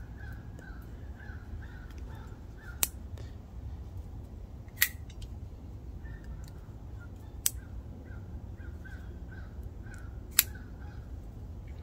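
Four sharp clicks a few seconds apart from a CRKT M16-12M folding knife being worked, the blade snapping open and shut on its newly replaced detent ball.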